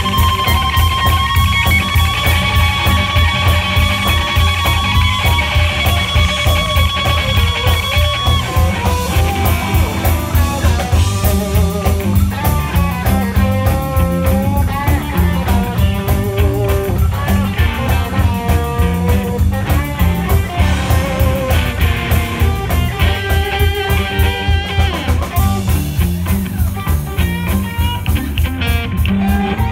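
Live blues-rock band playing loud: electric guitars over a steady bass-and-drum beat. A lead guitar holds one long sustained note for about the first eight seconds, then breaks into fast soloing runs.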